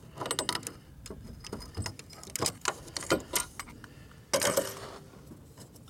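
Metal hand tools clicking and clinking against a fuel line fitting as vise grips and an adjustable wrench tighten the threaded coupler on a car's in-line fuel filter. A louder, brief clatter comes about four seconds in as the tools are taken off.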